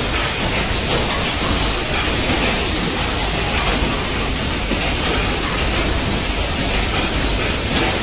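Steady, even machinery noise, the running fans and hum of fiber laser marking equipment in a workshop, with no distinct knocks or events.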